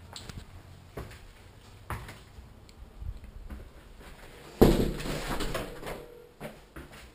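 A house's front door being handled and pushed shut: a few light knocks and clicks, then a loud thump as it shuts a little over four and a half seconds in, followed by a second or so of fading noise.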